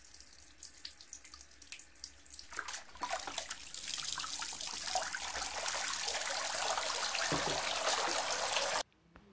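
Kitchen tap running into a steel sink while dishes are washed under it, with small clinks of steel plates. The water is faint at first, gets much louder about two and a half seconds in, and cuts off suddenly near the end.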